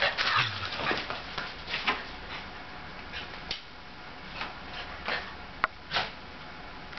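A Shetland sheepdog playing: scattered scuffles and clicks of its paws on the hard floor, busiest in the first second or two, with a sharp click and a short scuffle near the end.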